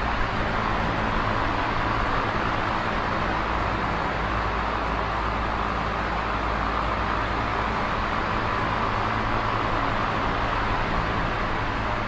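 Electric fan running steadily: an even rushing noise of moving air with a low motor hum underneath.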